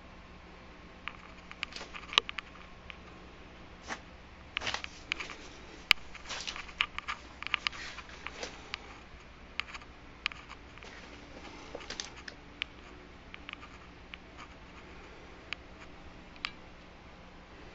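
Handling noise from a handheld camera: scattered, irregular light clicks and taps, busiest in the middle, over a steady low hum.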